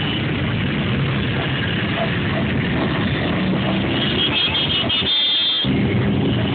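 Motorcycles riding past one after another, their engines running. A high, pulsing tone, like a horn, sounds for about a second and a half around two-thirds of the way in.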